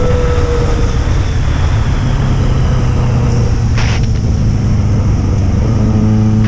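Yamaha XJ6 motorcycle's inline-four engine running, its pitch easing down a little in the first second and then holding steady, with a brief hiss about four seconds in.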